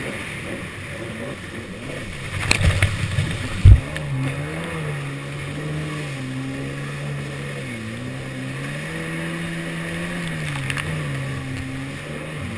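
Yamaha SuperJet stand-up jet ski under way. Rushing, splashing water and a few knocks come first, then a sharp thump about three and a half seconds in. After that the engine's hum comes up and rises and falls in pitch as the throttle is worked, over the hiss of spray.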